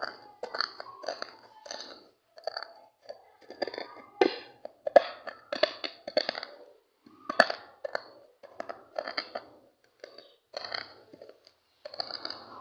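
Sunflower seeds being crushed by hand in place of a grinder, giving irregular crunching and crackling strokes with short pauses between them.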